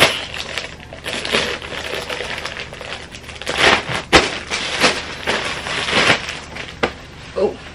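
Thin plastic packaging bag crinkling and rustling as it is handled and opened, in irregular bursts with one sharp crack about four seconds in.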